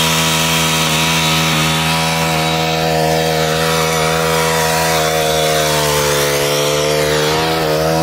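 Small gas engine of a capstan rope winch running steadily at high speed, hauling the rope to pull a tree over; the engine slows down near the end.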